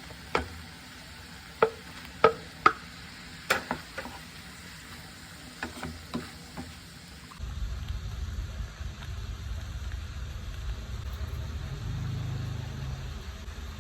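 Food sizzling in a pan while it is stirred, with a utensil knocking sharply against the pan about nine times. About halfway through, this cuts abruptly to a steady low rumble.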